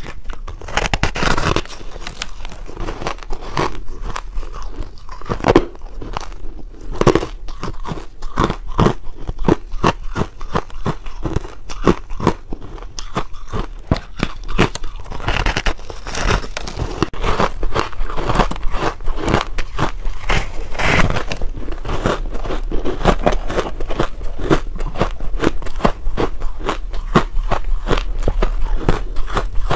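Close-miked biting and chewing of a slab of pink-coated ice cake: a steady stream of crunches and crackles.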